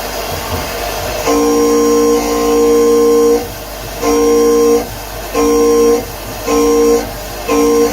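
CNC milling machine's axis drives whining in a steady tone of unchanging pitch that starts and stops with each move: one longer move, then short moves about once a second. A steady machine noise runs underneath.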